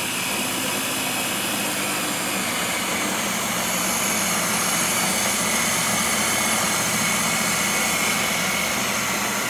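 Ninja food chopper's motor running steadily without a break, its blades chopping a potato mixture.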